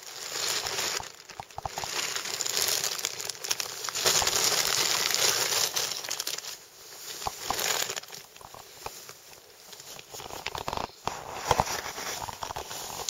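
Synthetic fabric rustling and crinkling right against the microphone in uneven bursts, as a blue sleeping bag or cover is moved and the camera is handled.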